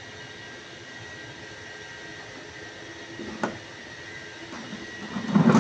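Steady machine hum of workshop background noise with a faint high whine. A short light knock comes about three and a half seconds in, and a louder thump near the end.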